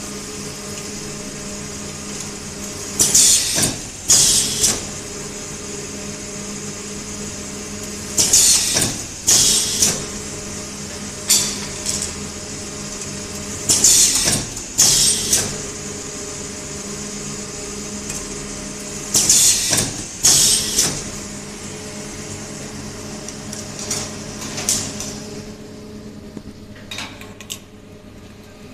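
Automatic shrink-film cutting and sealing machine running: a steady motor hum, with a pair of short, sharp bursts about every five and a half seconds as the sealing bar cycles on each package. Near the end the hum drops and the sound gets quieter.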